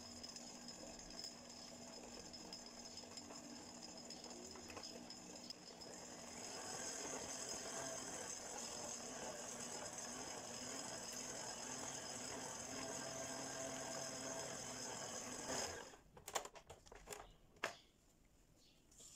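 Stand mixer motor running as its beater creams butter and powdered sugar in a stainless steel bowl, with a steady whine. It runs at low speed, then grows louder about six seconds in as the speed is turned up, and stops near the end, followed by a few light knocks.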